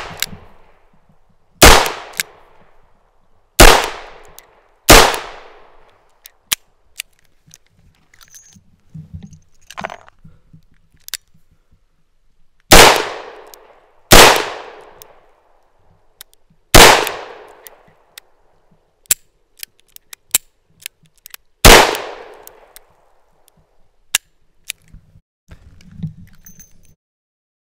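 A .357 Magnum revolver fired single shots, about seven in all, each a sharp crack with a short echo, spaced a second or two apart with a longer pause after the third. Faint clicks of the hammer being cocked fall between the shots. Near the end come small metallic clicks and rattles as the cylinder is swung open and the cases handled.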